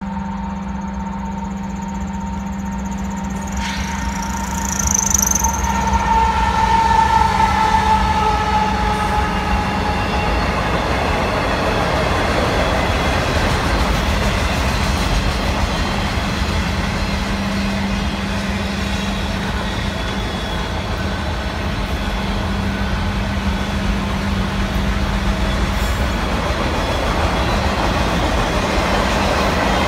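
Freight train of autorack cars rolling past close by: a steady rumble of steel wheels on the rails that grows louder about five seconds in and then holds. For the first several seconds, held tones from the approaching GE C45ACCTE locomotive sound over it and fade by about ten seconds in.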